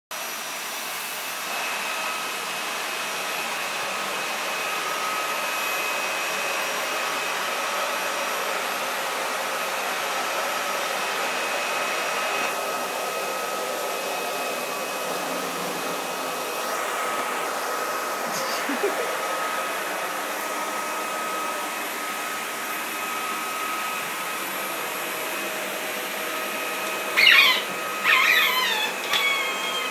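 Vacuum cleaner running steadily, its motor giving a constant hum and whine. Near the end come two or three loud bursts of high, sliding squeaks, typical of a dog's squeaky toy.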